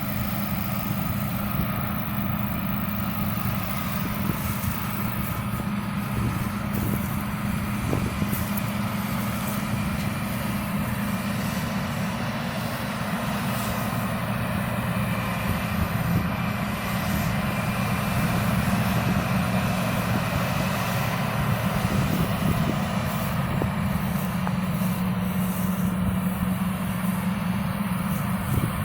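Combine harvester cutting rice: its diesel engine and threshing machinery running at a steady drone with a strong low hum.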